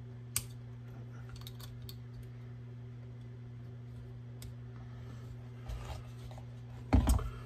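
Small metal clicks of Tara TM-9 pistol parts being handled and fitted back together, a sharp one about half a second in and several lighter ones soon after, then a louder quick clatter of knocks near the end. A steady low hum runs underneath.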